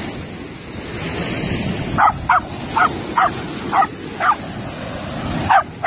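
Dog giving short high-pitched yips, about two a second, starting about two seconds in, over the steady wash of small waves on the shore.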